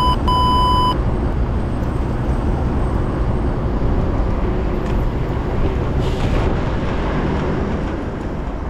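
Steady wind and road rumble of riding a bicycle through city traffic, with two short, high electronic beeps right at the start.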